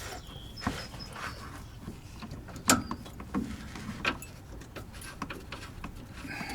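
Scattered metallic clicks and knocks of a bolt and hand tools being worked against the rear shock mount while trying to get the bolt's thread started, the loudest knock a little before the middle.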